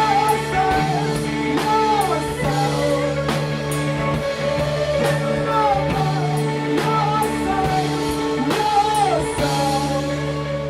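Rock band playing live: a sung melody that slides between notes over held guitar and keyboard chords, with drum and cymbal hits.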